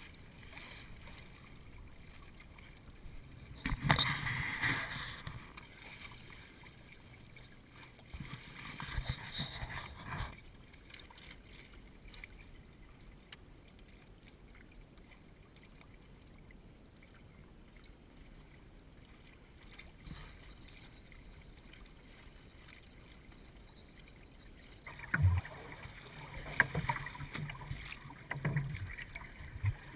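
Water splashing and rushing along the hull of a small wooden Eureka sailing canoe under way, in a few bursts with a faint hiss between them. Irregular slaps and knocks come near the end.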